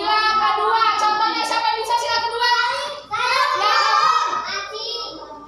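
A class of young children singing together in chorus, with a short break about three seconds in.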